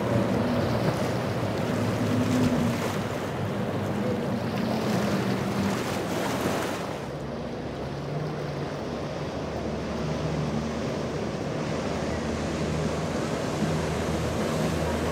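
Powerboats running through choppy inlet water: the rush and splash of spray and waves off the hull over a steady low engine drone, with wind on the microphone. About halfway through, the hiss of spray drops back and a lower, steady engine hum is left as a second boat passes.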